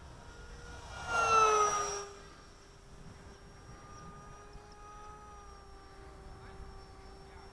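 Small radio-controlled pylon racer model plane making a fast pass: its propeller whine swells loud about a second in and drops in pitch as it goes by, then carries on as a fainter steady whine.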